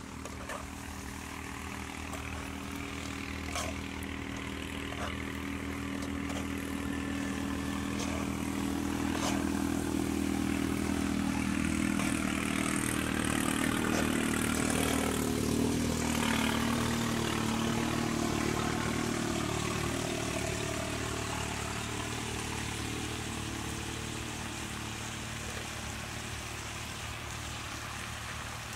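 A passing engine's steady drone grows louder towards the middle, drops in pitch as it passes and then fades away.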